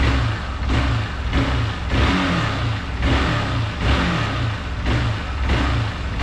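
Hero Xpulse 200 4V's single-cylinder engine and exhaust revving in quick, repeated throttle blips, a bit under two a second, with a newly fitted BMC performance air filter.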